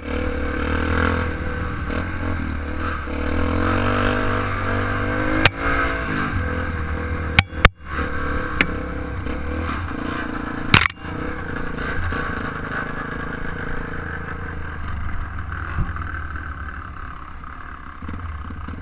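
Trail motorcycle engine running steadily, its pitch wavering a few seconds in, with several sharp knocks and clatter about five and a half, seven and a half and eleven seconds in.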